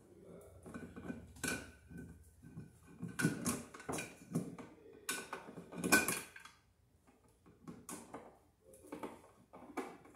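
Screwdriver working against a metal electrical junction box overhead: irregular metallic clinks, knocks and scrapes, each with a short ring from the box. The loudest knock comes about six seconds in.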